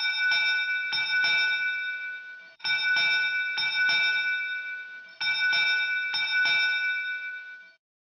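A bell ringing in three identical bursts, each of four quick strikes that ring on, repeating about every two and a half seconds.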